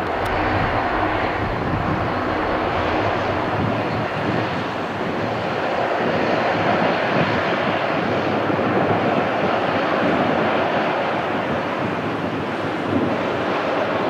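The jet engines of a four-engine Airbus A340 running at takeoff power as the airliner rolls away down the runway, heard from behind as a steady, loud jet rumble.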